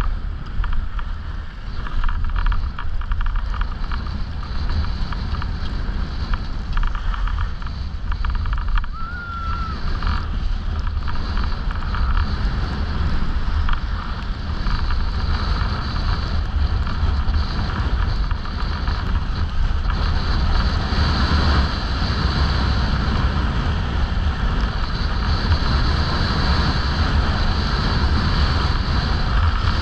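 Wind rushing over the microphone of a skier's camera during a downhill run, with the steady hiss and scrape of skis sliding on groomed snow. It grows a little stronger in the second half.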